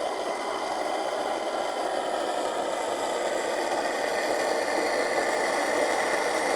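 MSR DragonFly multi-fuel stove burning at a steady rushing hiss under a pot of water at a boil, getting slightly louder near the end.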